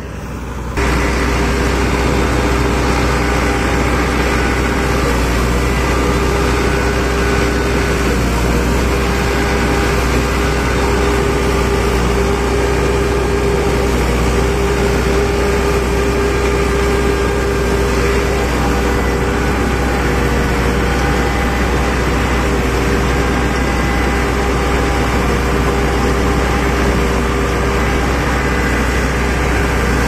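Combine harvester working in a rice field, heard from on board: its engine and threshing machinery make a loud, steady drone with a constant hum. The drone comes in abruptly about a second in and holds level.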